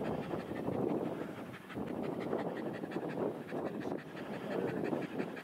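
Dog panting hard during an uphill desert hike, a steady run of breathy pants.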